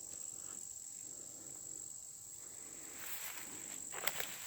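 Steady high-pitched chorus of insects droning in the woods, with a few soft crackles near the end.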